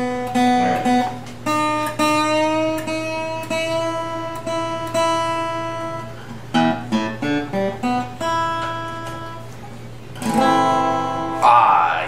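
Seagull Entourage CH CW QIT acoustic guitar being played: picked notes and chords left ringing, a quick run of single notes about halfway through, and louder strummed chords near the end.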